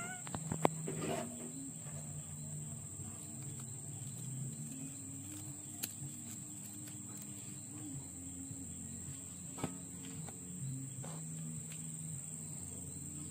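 Steady, high-pitched chorus of insects, over quiet background music of low notes changing in steps. A few faint clicks, about a second in, near the middle and near the end.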